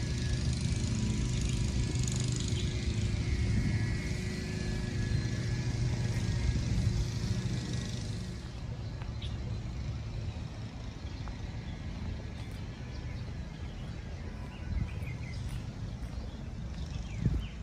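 Steady outdoor background noise: a low rumble with a hiss above it, the hiss easing off about eight seconds in.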